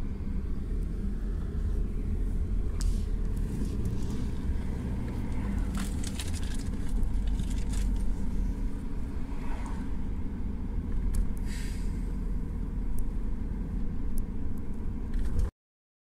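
Car cabin noise while driving: a steady low rumble of road and engine, with a few faint clicks here and there. It cuts off suddenly near the end.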